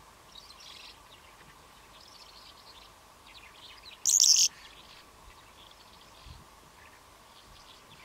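Calandra lark singing: short high phrases with pauses between them, and one much louder high burst about half a second long around the middle.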